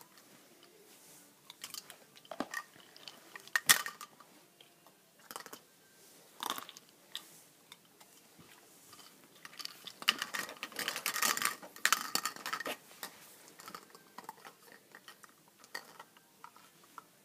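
Hollow plastic tubes clicking and clattering as they are knocked together and set down on the crate bedding. Single sharp knocks come every second or so, the loudest a few seconds in, then a dense run of clatter about ten seconds in, thinning to light clicks.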